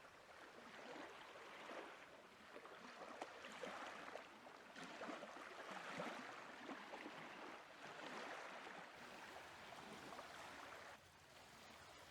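Lake waves lapping and splashing at the shore: a wash of water that swells and eases every second or two, stepping down quieter near the end.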